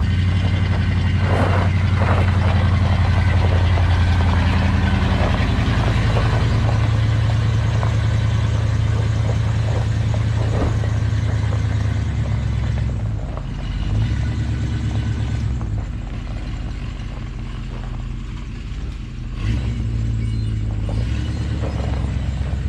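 One-ton Chevy van's engine running as the van is driven, a steady low drone for the first half that eases off and picks up again a couple of times in the second half.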